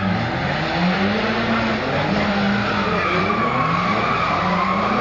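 Drift car sliding, its engine revving up and down as the throttle is worked while the tyres squeal. The squeal grows loudest in the second half.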